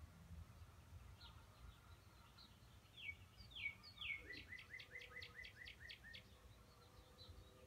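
Faint songbird singing: a few separate downward-slurred whistles, then a quick run of about ten short descending notes, roughly five a second, about four seconds in.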